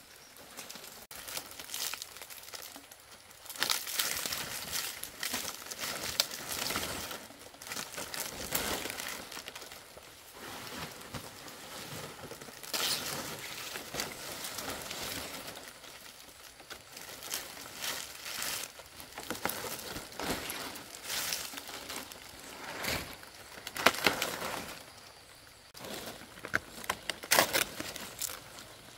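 Palm fronds rustling in irregular bursts as they are handled and laid over a bamboo roof frame for thatch.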